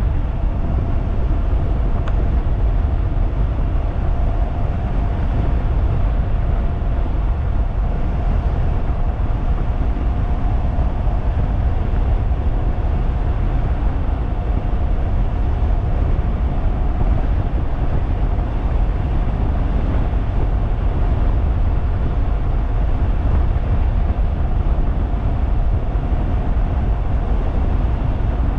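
Wind blasting the microphone of a DIY 3000-watt e-bike cruising at a steady high speed, with a steady high whine from its electric motor held at one pitch.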